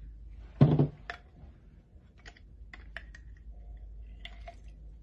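A thump a little under a second in, then a scatter of light clicks and clacks from a metal hand-held lever citrus squeezer being handled and opened over a steel cocktail shaker.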